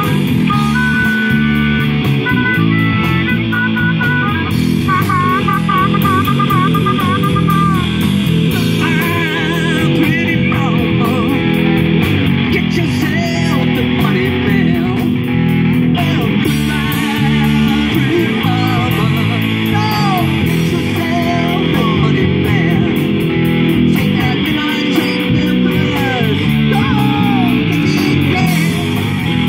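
Live rock band playing: electric guitars, bass guitar and drum kit. A harmonica plays held, wavering notes over the band for the first several seconds, then a man sings.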